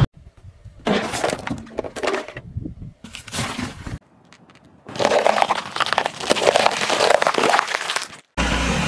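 A car tyre rolling onto a rectangular metal oil tin, crumpling it in two short bursts of crackling. After a cut, the tyre rolls over a row of four bell peppers, which crunch and crack apart for about three seconds.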